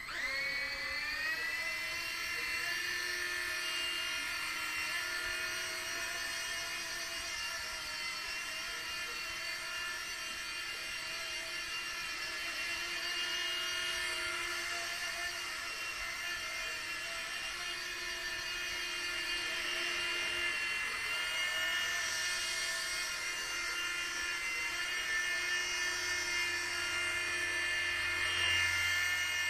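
E-flite Blade mSR micro RC helicopter's electric motors and rotors spinning up to speed, the high-pitched whine rising quickly in pitch at the start. It then holds a steady whine in flight, wavering slightly in pitch.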